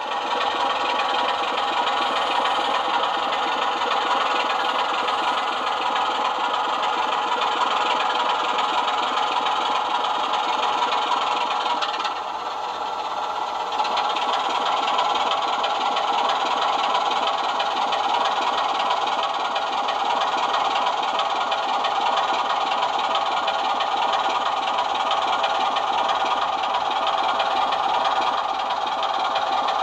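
OO-gauge Class 24 model locomotive's on-board sound decoder playing a Sulzer diesel engine, running steadily through the model's small speaker. It dips briefly about twelve seconds in.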